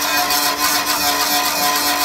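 Gas welding torch flame hissing steadily.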